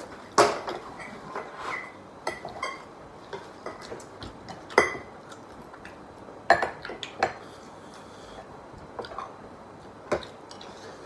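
Spoons and metal chopsticks clinking against bowls during a meal: a few separate sharp clinks, the loudest around half a second in and near five seconds, then a pair about seven seconds in and one more near the end.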